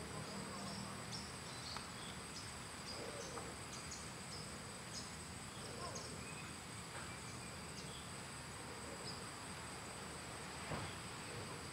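Steady insect chorus, two continuous high-pitched shrilling bands, with a few faint short chirps over it and one soft knock near the end.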